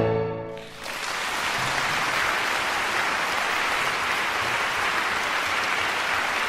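The last chord of violin and piano dies away, and about a second in a concert audience breaks into steady applause.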